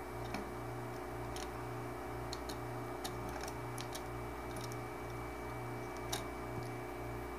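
Small, faint, scattered clicks of a flat ribbon cable being worked back into its connector on an LED TV panel's board by hand, over a low pulsing hum.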